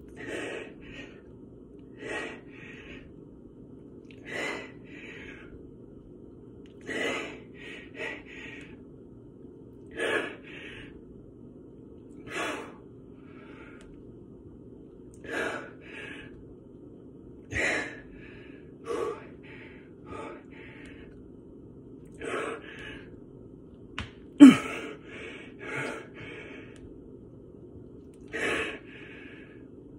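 A man breathing hard through a set of push-ups to failure, a sharp gasping breath with each repetition about every two to three seconds, some in quick in-and-out pairs. The loudest breath comes about three-quarters of the way through. A steady low hum runs underneath.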